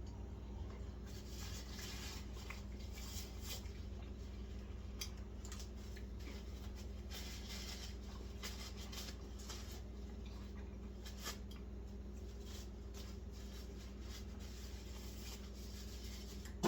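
Faint chewing and lip-smacking from eating a sauced chicken drumstick: scattered soft wet clicks and smacks over a steady low hum.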